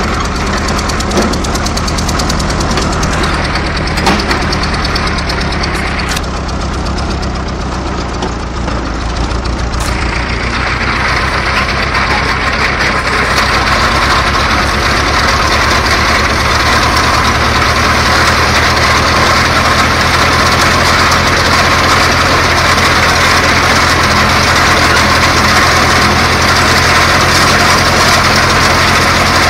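Tractor engine running steadily while pulling a hay rake, growing louder and harsher about ten to fourteen seconds in.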